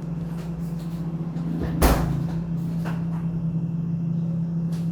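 A single sharp knock with a dull thud about two seconds in, like a cupboard door or an object set down hard, followed by a couple of fainter clicks, over a steady low hum.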